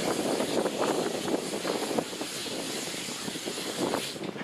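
Hunslet quarry 0-4-0 saddle tank steam locomotive blowing off steam in a steady, loud hiss that falls away near the end.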